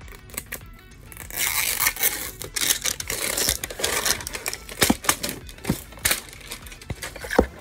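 Plastic toy packaging crinkling and tearing, with scattered sharp clicks and knocks, starting about a second in.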